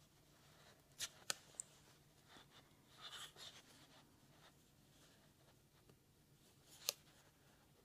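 Near silence with the faint rustle of yarn and light clicks of a metal crochet hook working double crochet stitches: a few clicks about a second in, a soft scratchy patch around three seconds, and one sharper click near the end.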